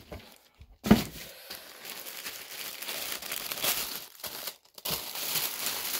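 A sharp thump about a second in, then tissue paper crinkling and rustling as it is handled in the box, with a brief pause a little after four seconds.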